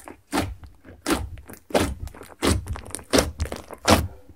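Fingertips poking into a thick, stiff slime made from clear slime mixed with makeup and glitter, about six sharp pokes in a steady rhythm, roughly one every two-thirds of a second.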